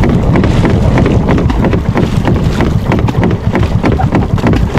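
A long pole plunged repeatedly into the water from a boat's bow, each stroke a splash, over heavy wind rumble on the microphone. The water is beaten this way to drive fish toward a net (timbog fishing).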